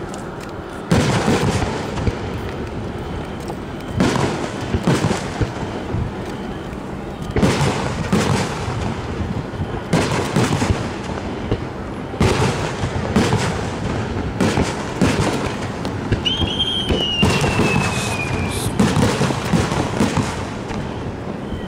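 Aerial fireworks shells bursting overhead in a steady barrage, a sharp boom with a rumbling tail every second or two. Near the end a thin whistle falls slowly in pitch for about two seconds.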